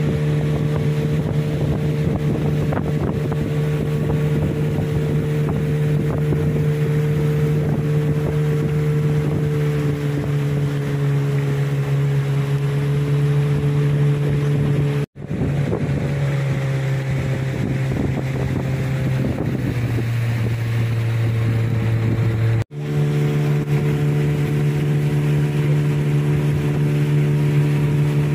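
An engine running steadily at an even speed as a continuous drone, with wind on the microphone. The sound cuts out abruptly twice, about 15 and 23 seconds in, and the engine pitch sits a little lower between those breaks.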